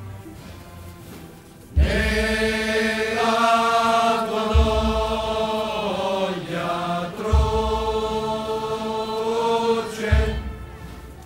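A large male choir singing a slow hymn in unison, in long held notes, with a low thump about every three seconds. The singing begins about two seconds in and fades near the end.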